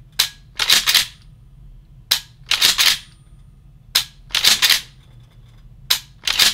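A pump-action 12-gauge shotgun's action being worked: a single sharp click followed by a quick double clack, repeating in a steady cycle about every two seconds, four times.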